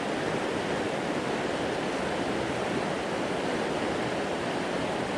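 A fast river running over rapids, a steady rush of water with no letup. The river is swollen high with snow and rain.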